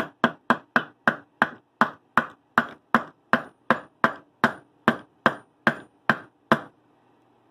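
Steady tapping with a hammer and a wooden tapper, driving a new ball bearing down onto the spindle of a Makita cordless drill clamped in a vise: about three sharp knocks a second, stopping shortly before the end.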